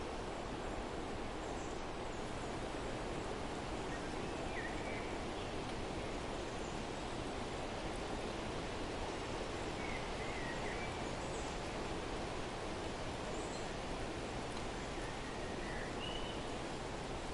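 Steady outdoor background noise with a few faint, short bird chirps scattered through it, about three small groups.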